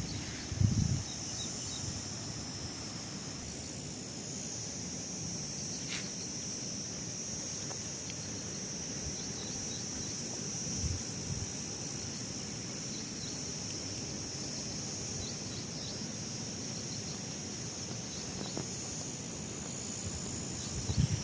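Steady high-pitched drone of insects, cicadas or crickets, over open outdoor background noise. A loud low thump comes about a second in and a softer one about halfway.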